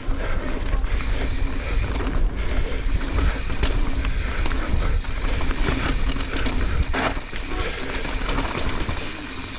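Wind rushing over the camera microphone of a mountain bike descending a dirt jump line, with tyre and trail noise and a few sharp knocks as the bike hits bumps and landings.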